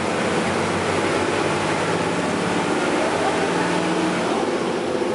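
A vehicle running steadily: an even rumble and hiss with a few held tones underneath.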